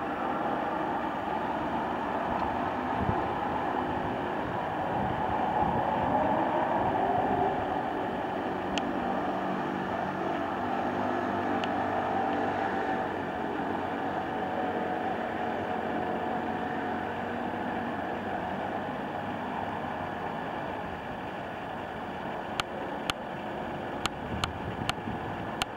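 An engine running steadily, its pitch rising and falling about six seconds in, with a series of sharp clicks near the end.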